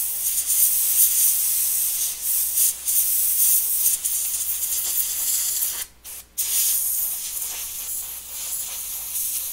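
Compressed air blowing water off a freshly ultrasonic-cleaned circuit board: a steady high hiss that stops twice briefly about six seconds in.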